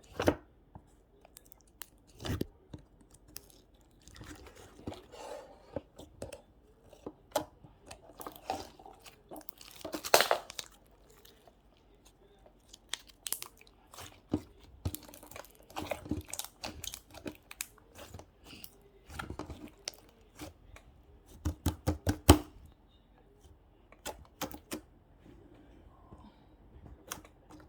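Close-up handling noises: irregular taps, clicks and short crinkling or tearing rustles, with a few sharper strikes.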